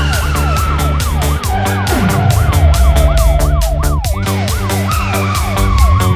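Police car siren wailing quickly up and down, about two to three sweeps a second, over background music with a steady beat.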